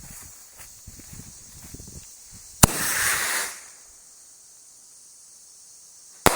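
Small consumer firework missile going off: faint sputtering from the fuse, then a sharp bang about two and a half seconds in followed by about a second of rushing hiss as the motor burns, and a second sharp bang near the end.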